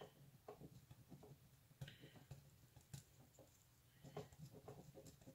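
Faint scratching and light irregular ticks of a pen writing on a planner page.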